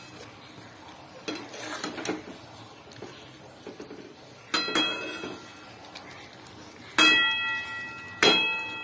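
Three sudden ringing metallic strikes, about four and a half, seven and eight seconds in, each dying away within a second. Before them come a few faint light clinks of metal on metal.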